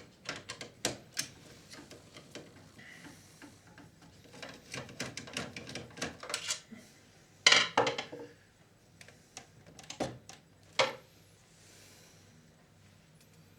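Sharp clicks, taps and clatter of the plastic and metal casing parts of a Panasonic NV-G7 VCR being handled and taken apart. The loudest clatter comes about halfway through, with a few more knocks a little later, then the sounds die away.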